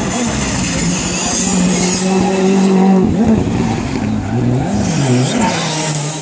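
Rally car engine running hard at high revs, then dropping in pitch about three seconds in as it slows for a bend, the revs rising and falling several times through the corner.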